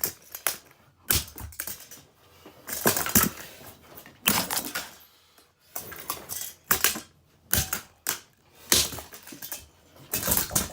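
Plastic body of a Dirt Devil Classic race-car vacuum being smashed, about ten separate blows with cracking and crunching of plastic, spaced unevenly with short gaps between them.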